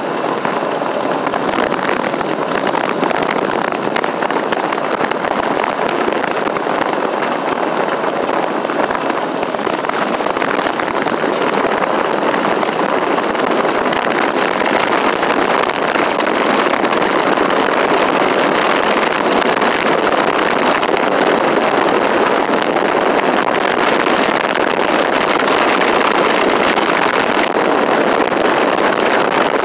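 Steady rushing noise of wind over the microphone and road noise from a Schwinn Traveler bicycle speeding downhill, getting a little louder in the second half.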